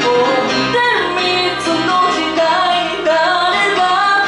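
A woman singing live through a microphone over instrumental backing music, her voice gliding through sustained, bending notes.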